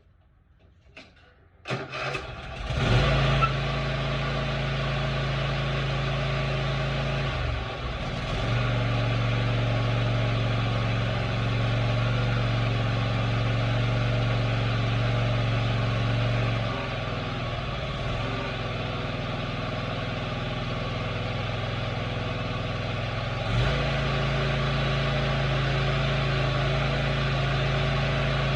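Lawn mower engine cranked over by its starter and catching about three seconds in, then running steadily, its sound stepping louder and softer a few times. It starts now that a new starter solenoid has replaced one with a bad, corroded connection.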